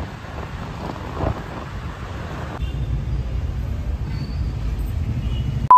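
City street traffic noise: a haze of passing vehicles and road rumble, with the low rumble growing deeper and steadier about two and a half seconds in. A loud, steady, high beep starts right at the very end.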